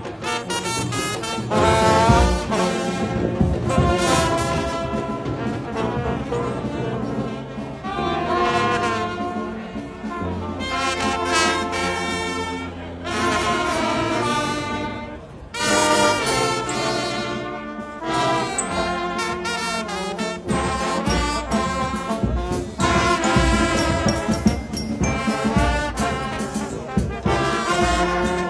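Military brass band playing, with trombones and trumpets sounding held notes in phrases over a steady bass line.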